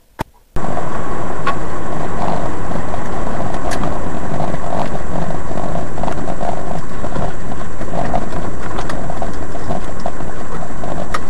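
Loud, steady engine and road noise of a vehicle driving, heard from inside its cab, with a constant thin whine; it starts abruptly about half a second in, after a single click.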